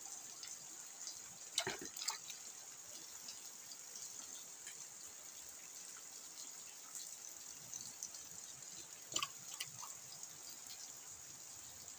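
Climbing perch (koi) splashing in shallow water in a plastic bucket: a couple of sharp splashes about one and a half to two seconds in and again about nine seconds in, over a steady faint hiss.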